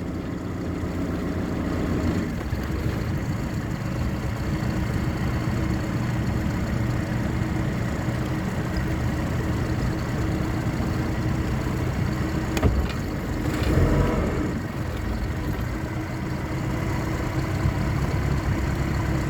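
Ford 2.3-litre four-cylinder MerCruiser boat engine running steadily under way while overheating, running at about 230 degrees and steaming. A sharp knock sounds once about twelve and a half seconds in.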